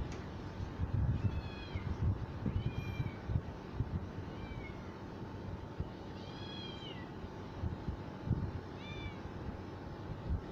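Cat meowing about five times, short high meows with the longest about six seconds in, over dull low bumps.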